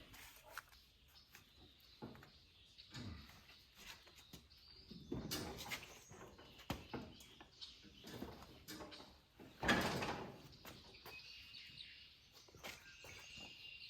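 Scattered knocks and scrapes as the ride-on mower is lifted off the cinder block that held it up, the loudest about ten seconds in. Faint bird chirps behind.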